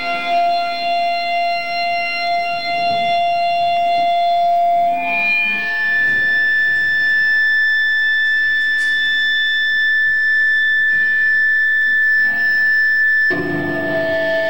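A single long held note ringing on alone, without drums, from a live band. It jumps to a higher steady pitch about five seconds in, and near the end the full band comes back in underneath it.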